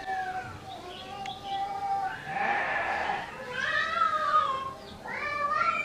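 Several drawn-out animal calls in a row, each a single pitched cry rising and falling, with a short scratchy rub of a marker on a whiteboard about halfway through.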